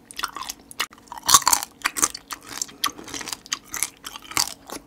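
A person chewing and biting marinated crab, with irregular crunches and crackles from the shell and flesh.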